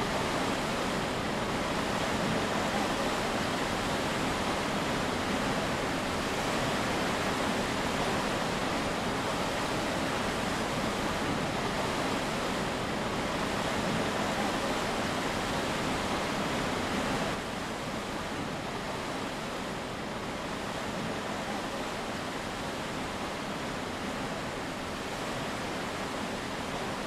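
Steady rushing noise of wind and sea on the open deck of a moving cruise ship, dropping slightly in level about two-thirds of the way through.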